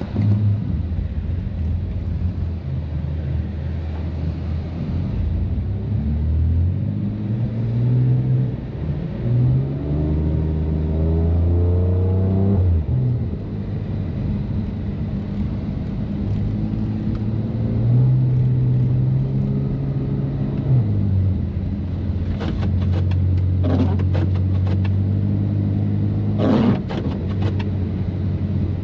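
BMW M3's twin-turbo straight-six with catless downpipes and an open valved exhaust, idling low and then pulling away, its note climbing for several seconds before dropping back. It holds a steadier higher note for a few seconds, then returns to a low rumble, with a spell of sharp crackles near the end.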